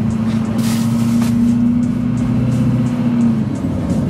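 Duramax LLY 6.6-litre V8 turbo-diesel with a 5-inch exhaust, heard from inside the cab as the truck drives at steady throttle. It holds a steady low drone, which eases off about three and a half seconds in.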